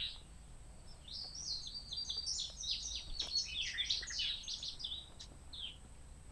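A songbird singing a rapid, jumbled song of many quick high notes, starting about a second in and running for about three and a half seconds, followed by one short note near the end.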